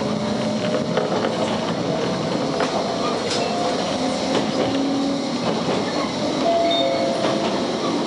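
Steady running noise of a Toyama Chihō Railway electric train as heard inside the driver's cab: wheels rolling on the rails, with scattered short clicks.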